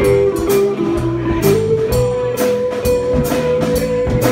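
Live band playing: an electric guitar line that steps up to one high note, held for about two and a half seconds, over a steady drum kit beat.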